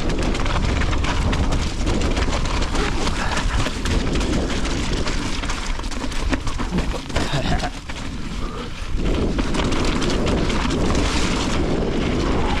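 Mountain bike descending a rough, wet, rocky trail: a heavy wind rumble on the action-camera microphone with the rattle and clatter of tyres and bike over rock, easing briefly about eight seconds in.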